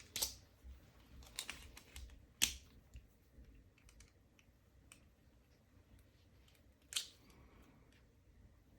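Small metal clicks and scrapes of a tool working at a brass lock cylinder while the lock is being taken apart. There are a few sharper clicks, about four in all, with faint ticking between them.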